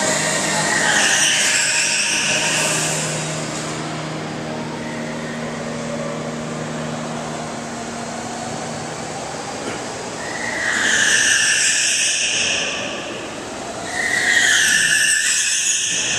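Go-kart driving laps on an indoor concrete track, its tyres squealing through the corners three times (near the start, about eleven seconds in, and near the end), with the kart's motor droning low in between.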